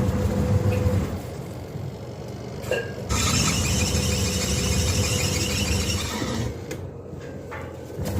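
Washing machine running with a steady low hum. From about three seconds in, a louder hissing whir joins it, then drops away again shortly before the end.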